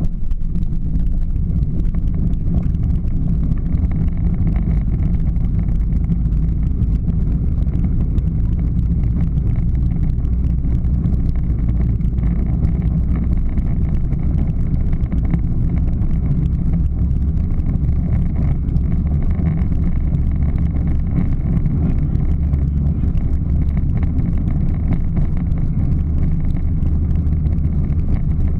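Power Wheels ride-on toy Jeep driving along asphalt: the steady low rumble of its hard plastic wheels and drive motors, with wind on the microphone.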